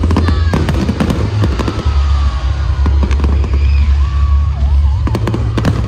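Aerial fireworks display: rapid bangs and crackling from bursting shells, thickest in the first second and a half and again near the end, with music playing underneath.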